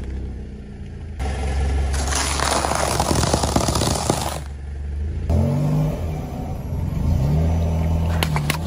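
Car tyre rolling over and crushing objects, with a low engine and tyre rumble underneath. First comes a gritty crunching as it squashes a soft yellow slab. Then come rubbery squeals that slide up and down as the tyre presses on long modelling balloons, with a few sharp snaps near the end.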